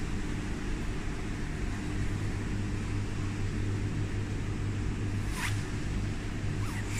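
Steady low machine hum under a rushing, water-like hiss from an aquarium wave tank and its pumping plant.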